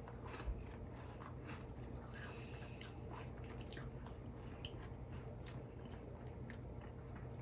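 Faint chewing of cream-filled sandwich cookies, with scattered small crisp clicks over a steady low room hum.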